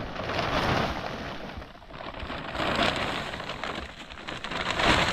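Large plastic sheet crinkling and rustling as it is handled, shaken out and spread over a pile. The crackle swells and eases three times.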